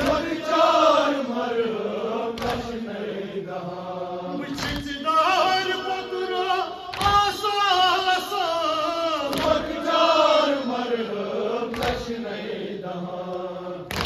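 A male reciter chants a nauha, a Shia lament, through a microphone, joined by mourners' voices. Slow unison chest-beating (matam) by the mourners lands as one sharp strike about every two and a half seconds, keeping time with the chant.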